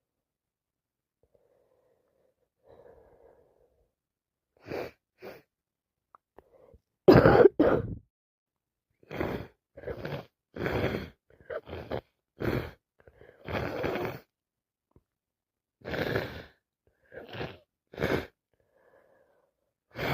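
A woman sneezing over and over: faint breaths, then about a dozen sharp sneezes spaced a second or two apart. The loudest is a quick double sneeze about seven seconds in.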